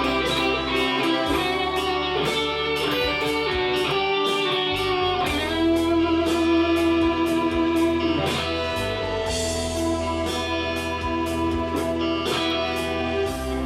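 Electric guitar improvising a lead line over a backing jam track with drums and bass, holding one long note in the middle.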